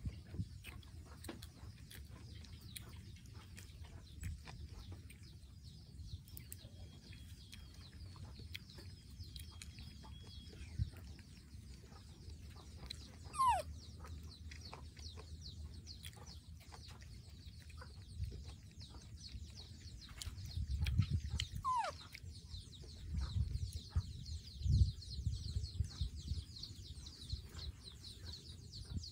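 Faint animal calls in the background, with two short falling calls about halfway through and again a few seconds later, over a low rumble and a thin high buzz.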